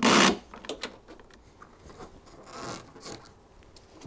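CB antenna coaxial cable being pulled and drawn through the vehicle's interior trim: a short, sharp rasp right at the start, then light rustling and small clicks, with a softer drag of cable about two and a half seconds in.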